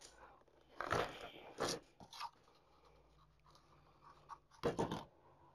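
A few short rustles and scrapes of ribbon being handled, with a duller knock near the end.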